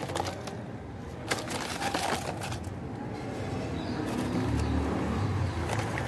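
Scattered light clicks and rustles over a low rumble of street traffic that swells from about four seconds in.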